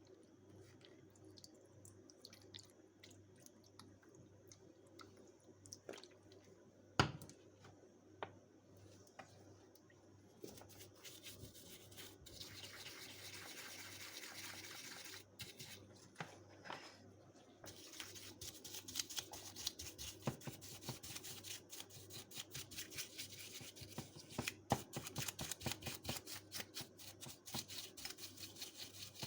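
Small stiff brush scrubbing carburetor parts in rapid strokes, dense through the second half. Earlier come scattered clicks, a sharp knock about seven seconds in, and a steady hiss lasting about five seconds.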